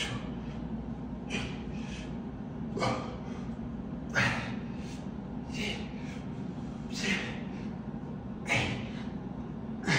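Short, sharp breaths, forced out in a regular rhythm about every second and a half while curling dumbbells, over a steady low hum.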